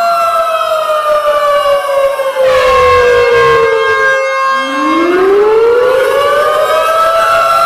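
Outdoor tornado warning siren winding down, its pitch falling to a low point about four seconds in, then winding back up. Several siren tones overlap.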